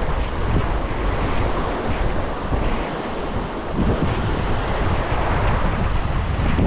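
Wind buffeting an action camera's microphone: a gusty, rumbling rush that rises and falls, over the steady hiss of a rocky mountain creek running alongside.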